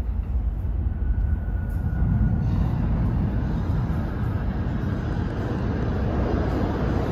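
New York City subway train arriving at the station: a low rumble of wheels on the rails that grows louder and fuller as it approaches.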